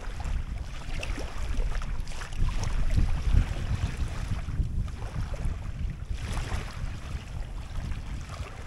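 Wind buffeting the microphone, a gusty low rumble that peaks about three seconds in, with small waves lapping at the shoreline underneath.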